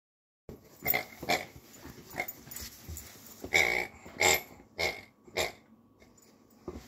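Great Dane puppy making a run of short vocal noises, about ten in five seconds, while playing with a toy. The sounds start about half a second in and die down near the end.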